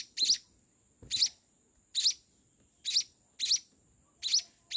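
Week-old munia chick chirping: a series of short, high chirps, each rising quickly in pitch, about one a second and sometimes in close pairs.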